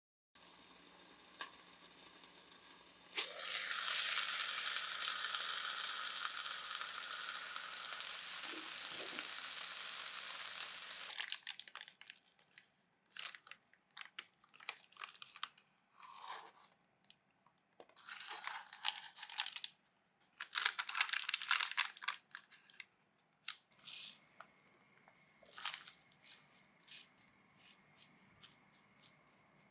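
Cooking-preparation sounds: a steady hiss that starts suddenly about three seconds in and stops about eight seconds later, then scattered rustling, crinkling and light clicks.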